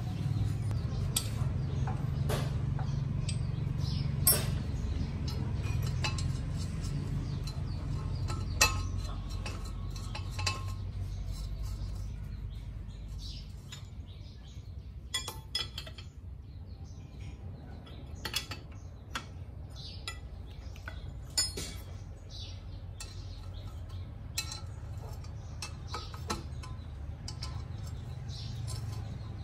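Scattered metal clinks and knocks of a spanner and bolts as a cast-iron workpiece is clamped to a lathe's four-jaw chuck, over a low hum that weakens about halfway through.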